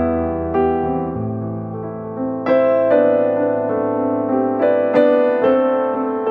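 Background music: a gentle electric piano playing a slow melody over sustained chords.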